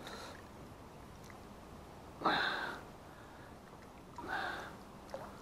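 A person sniffing twice, two short breathy sounds about two seconds apart, over faint background.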